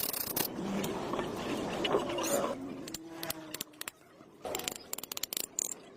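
Scattered light clicks and scrapes, denser in the first half and sparser toward the end, like small metal parts being handled.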